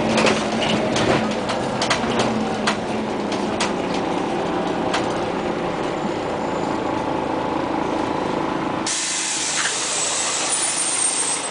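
Aboard a 2001 Scania CN94UA OmniCity city bus under way: the engine's steady drone under frequent clicks and rattles of the body and fittings. About nine seconds in, the low drone drops out abruptly and a steady hiss takes over.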